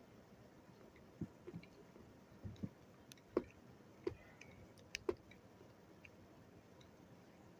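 Scattered small clicks and taps of a screwdriver working screws into an RC car's plastic parts, about a dozen between one and five seconds in, then quiet.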